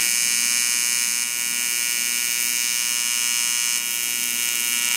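Loud, steady electric buzz of an AC TIG welding arc on an aluminium throttle body, welding its flange.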